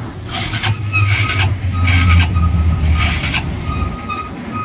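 A motor vehicle's engine rumbling close by, with four short bursts of hiss about a second apart.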